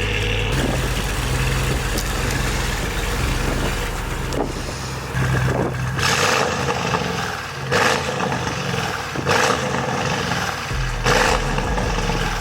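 2021 Audi RS6's twin-turbo 4.0 TFSI V8, fitted with downpipes and a full aftermarket exhaust on a Stage 2 tune, running with a steady low drone. In the second half, four short loud bursts come roughly every second and a half.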